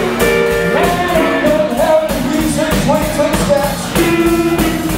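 Live band playing rock and roll: electric guitar, bass guitar and drum kit, with a man singing into a microphone.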